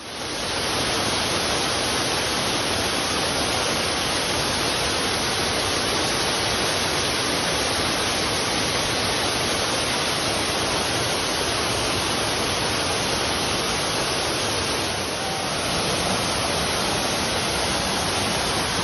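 Waterfall rushing: a steady, dense roar of falling water that fades in at the start and holds level, dipping slightly about fifteen seconds in.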